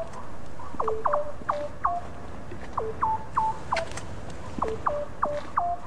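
Electronic sci-fi sound effect: about fifteen short bleeps in quick runs of two to four, each falling sharply in pitch and then holding a brief steady note.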